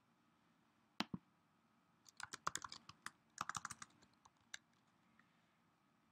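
Typing on a computer keyboard: two sharp key clicks about a second in, then two quick runs of keystrokes, and one last keystroke a little later.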